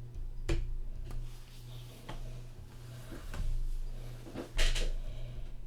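A series of knocks and clatters of things being handled, with the loudest clack near the end, over a steady low electrical hum.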